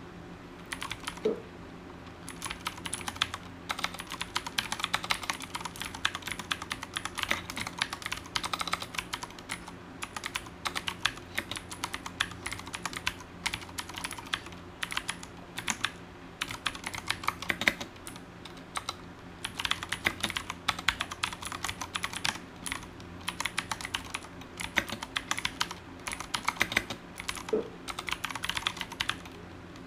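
Mechanical keyboard with Cherry MX Blue switches being typed on continuously: quick crisp clicks from each keystroke, in fast runs with short pauses between them.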